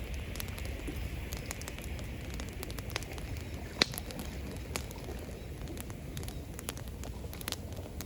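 Wood campfire crackling, with scattered sharp pops and one louder snap about four seconds in, over a steady low rush of running water.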